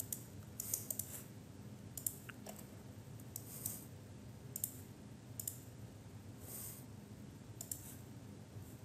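Faint, irregularly spaced clicks of a computer mouse and keyboard keys, about a dozen short ticks over a quiet room hiss.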